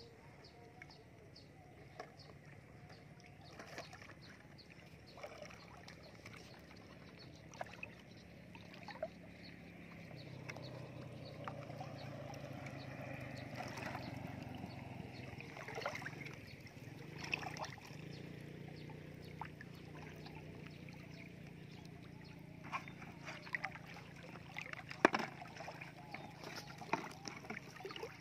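Water sloshing and swirling around a person's legs as they wade in shallow water, with scattered light clicks and knocks, the loudest a sharp knock a few seconds before the end.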